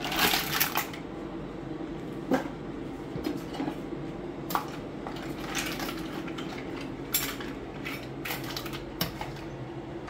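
Mussels tipped into a stainless-steel stockpot with a clatter of shells in the first second. Then a plastic spoon stirs them, the shells clinking and scraping against each other and the pot at irregular moments.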